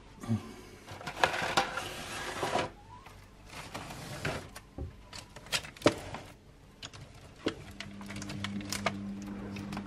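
Hands rummaging through cupboard shelves and moving things about: rustling with a string of clicks and knocks, the sharpest about six seconds in. A steady low hum comes in about eight seconds in.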